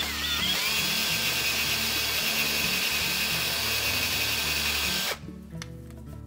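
Cordless drill with a 3/16 inch bit spinning up and drilling out the hinge screw hole in a refrigerator door, enlarging it to be tapped for a 10-32 screw. Its pitch rises as it spins up, then it runs steadily for about five seconds and stops suddenly.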